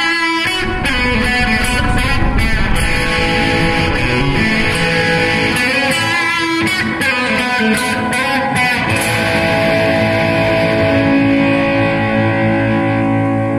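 Gibson Explorer electric guitar played through a Bugera 6262 Infinium valve amp on a crunch tone. Busy picked riffing for most of the time, then from about two-thirds of the way in, a chord is held and left ringing.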